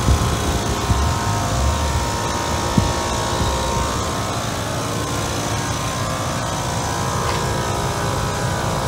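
American Standard Silver Series 5-ton central air conditioner's outdoor condensing unit running: a steady whir from the condenser fan and compressor, with a hum of several steady tones around 1 kHz and a few low bumps in the first two seconds.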